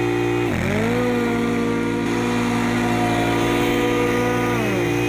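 Scag V-Ride 2 stand-on mower's V-twin engine running with its blades engaged while mowing tall grass. Its pitch dips sharply about half a second in and quickly recovers, then falls again near the end.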